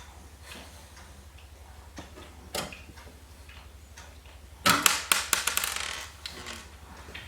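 Handling noise as screws go into a PC case's power supply mount: a single knock about two and a half seconds in, then a loud burst of rapid clattering for about a second and a half, over a steady low hum with fast ticking.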